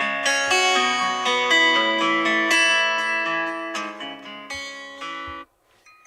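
A built-in Xiaomi MI 11 Ultra ringtone playing: a plucked, guitar-like melody that cuts off abruptly about five and a half seconds in.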